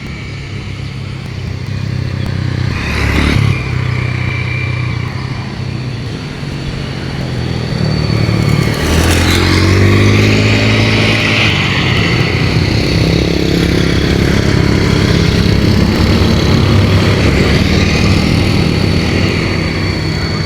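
Road traffic passing: motor vehicle engines running, getting louder about eight seconds in as a vehicle accelerates through with a rising engine note.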